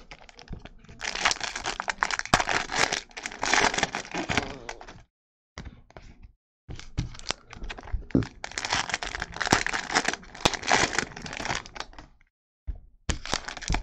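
Trading-card pack wrappers being torn open and crinkled by hand, in two stretches of a few seconds each with short pauses between.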